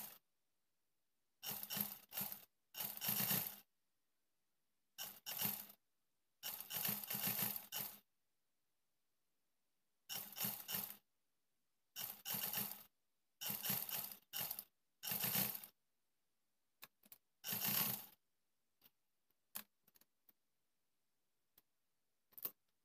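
Black domestic sewing machine stitching a waistband in about ten short runs of half a second to a second and a half, stopping briefly between runs. A few light clicks near the end.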